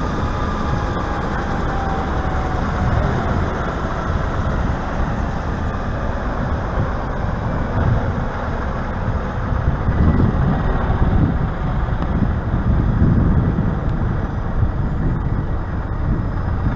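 EC135-type air ambulance helicopter running on the ground, its turbine engines and slowly turning main rotor making a steady, loud noise with low surges in the second half.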